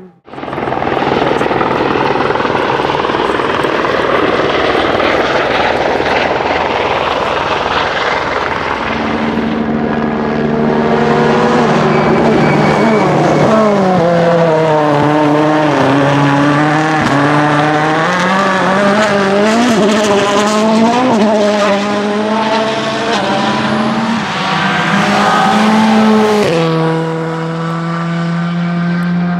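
Rally car engine at full stage speed, revving up and down through quick gear changes and lifts. A rushing noise fills the first several seconds, and the note settles to a steadier tone near the end.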